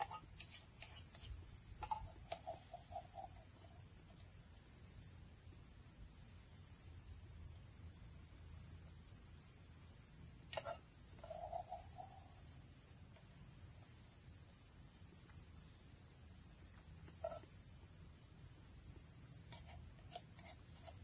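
Steady, high-pitched chorus of insects, with a few light clicks of a spoon against the cup scattered through it.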